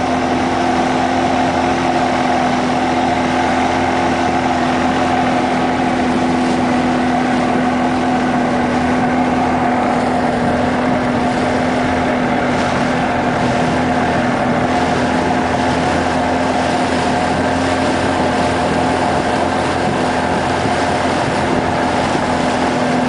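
A boat's engine running steadily under way: an unchanging drone with a couple of steady tones, over a constant rush of noise.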